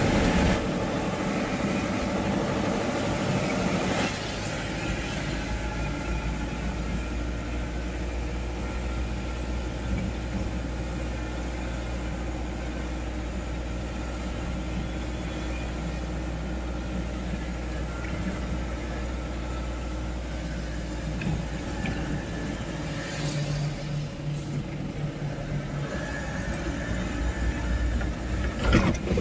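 Car driving along a wet road, its engine and tyres making a steady low rumble.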